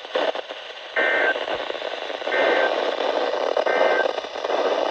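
Emergency Alert System end-of-message data burst, the warbling two-tone digital header sent three times with about a second of gap between each, marking the end of the alert. Radio static hiss runs underneath.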